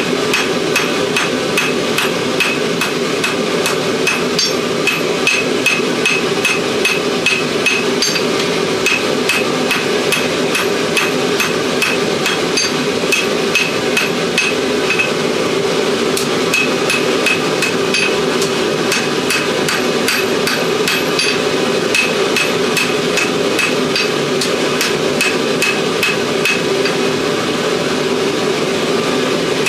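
Hand hammer forging a hot old file into a knife blade on an anvil: steady rhythmic blows, about two a second, each with a short bright ring. A steady noise runs underneath.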